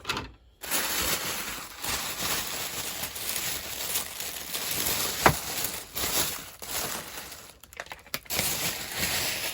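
Packing paper rustling and crumpling as it is handled and pulled apart, in uneven bursts, with one sharp click a little past halfway through.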